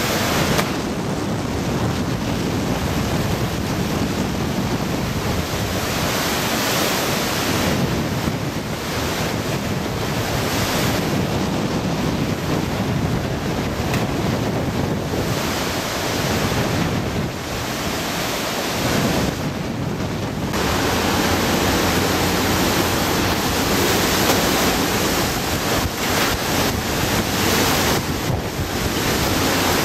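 Typhoon eyewall wind and heavy wind-driven rain, a loud rushing noise that surges and eases in gusts and grows stronger about two-thirds of the way through, with wind buffeting the microphone.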